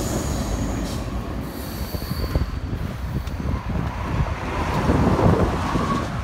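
Freight train rolling past below: a steady low rumble with thin, high wheel squeals. Road traffic, a heavy truck among it, grows louder near the end.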